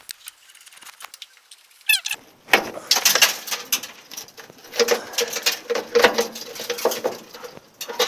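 Screws being turned out of the windshield frame with a hand screwdriver: a short squeak about two seconds in, then repeated squeaking and scraping of the screws working loose.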